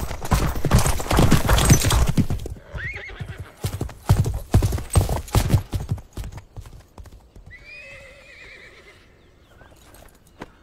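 A horse galloping, its hoofbeats loud for the first couple of seconds and again from about four to six seconds in. Then a horse whinnies once, about eight seconds in.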